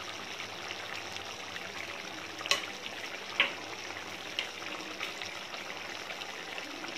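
Thick chickpea curry gravy boiling in an aluminium kadai, bubbles bursting with a steady plopping and popping; three louder pops come about a second apart near the middle.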